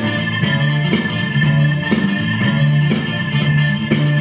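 Battle music played by the DJ over the sound system: a steady beat of about one and a half strokes a second under held organ-like keyboard tones.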